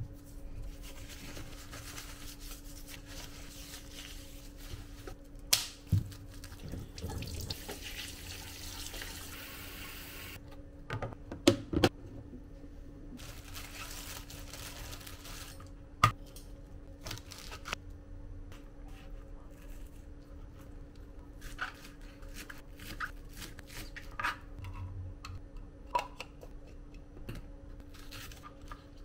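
Kitchen tap water running for about ten seconds, then shut off. Scattered knocks and clicks follow as green onions and a knife are handled on a plastic cutting board.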